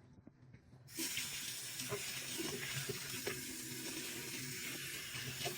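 Tap water running steadily, starting about a second in, rinsing out a wet-dry vacuum's dirty water tank, with a few light knocks of the plastic parts.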